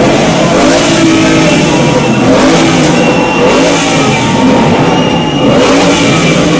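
Sports car V8 engines, including a Ford Mustang GT's, revving hard and repeatedly while the cars stand still, the revs rising and falling.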